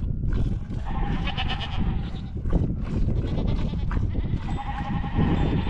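Flock of sheep and goats bleating, with two prominent wavering bleats, one about a second in and one near the end, over a steady low rumble.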